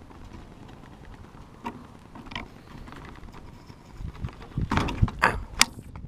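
Metal steering-wheel quick-release being fitted onto the wheel's hub by hand, creaking and clicking. A few faint clicks come first, then a run of louder metallic clicks and knocks in the last two seconds.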